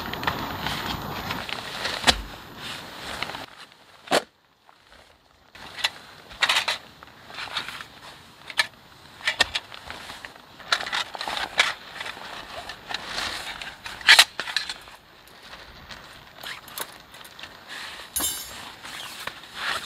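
Camping gear being handled and unpacked: a nylon stuff sack rustling, and thin metal wire pieces clicking and clinking against each other, with one sharp click about two-thirds of the way in and a quick rattle near the end.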